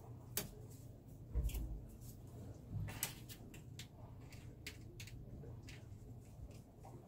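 Scattered light clicks and knocks of a screwdriver and gloved hands working the metal fittings and hose clamps on a Yanmar marine diesel's turbocharger, with a dull thump about one and a half seconds in.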